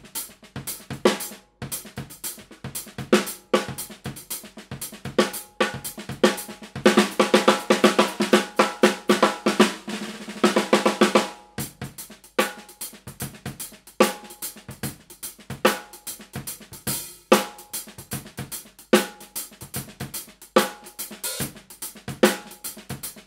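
SCD Golden Ash Maple 14 x 6.5 inch snare drum with a freshly fitted and tuned Remo Ambassador X Coated batter head, played with sticks. Separate strokes and accents, with a dense roll from about seven to about eleven seconds in.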